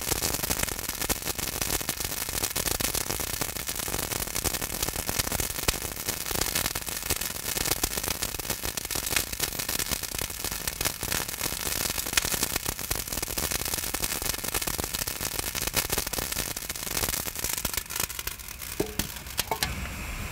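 King prawns roasting on a bed of coarse salt in a hot cast-iron cauldron lid: a dense, steady crackle and popping of the heated salt and sizzling shells. Near the end the crackle thins and there is a short metallic ring as the metal cover lid is handled.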